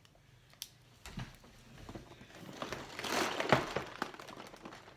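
A cardboard Lego set box being handled: a few light knocks, then a swelling rustle or scrape about three seconds in, with a sharp knock at its loudest point.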